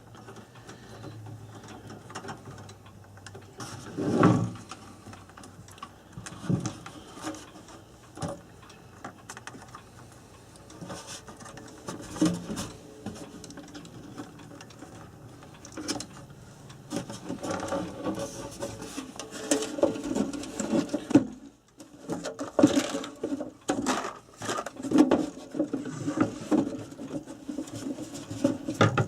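Irregular clicks, taps and rattles of clock parts being handled and fitted, sparse at first and busier in the last third.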